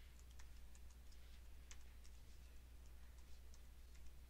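Faint, irregular clicking of computer keyboard keys as a password is typed, over a low steady hum.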